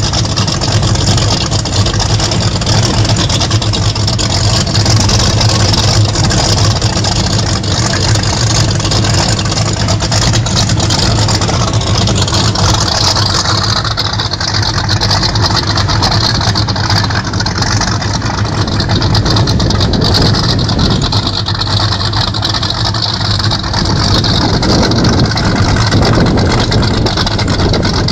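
Motorboat engines running steadily, a constant low hum under a loud rush of wind and water.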